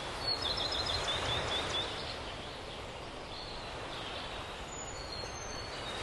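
Steady wash of outdoor ambient noise with a small bird chirping: a quick run of short chirps in the first couple of seconds, then a few brief high whistles near the five-second mark.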